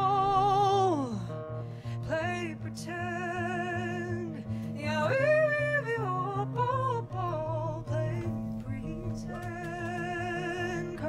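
A live band plays with strummed acoustic guitar, electric guitar, bass guitar and drums. Over a steady bass line, a wavering lead melody with vibrato bends and slides, including a long downward slide about a second in.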